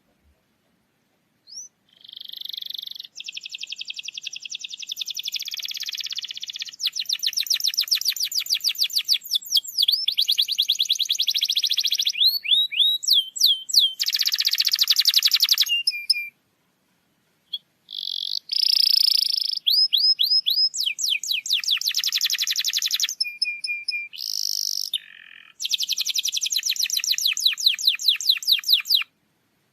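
Domestic canary singing a long song of fast trills and rolled phrases, with rapid repeated notes and quick up-slurred whistles, broken by brief pauses about halfway through and near the end.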